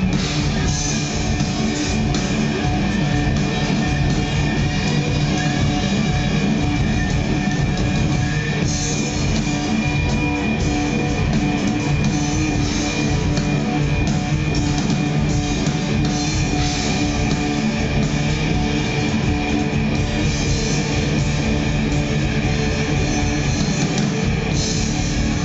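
Live rock band playing an instrumental passage on electric guitar, bass guitar and drum kit, loud and unbroken.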